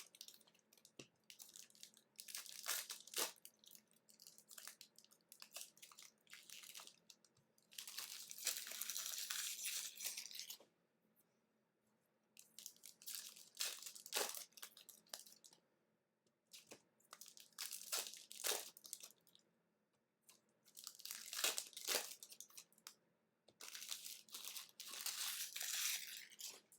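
Plastic wrapping on trading card packs being torn open and crinkled by hand, in several separate bursts with one longer tear about eight seconds in.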